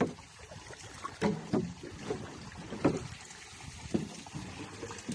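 Water splashing around a small outrigger canoe moving through shallow water, with sharp splashes or hits at irregular moments roughly once a second over a low wash of water.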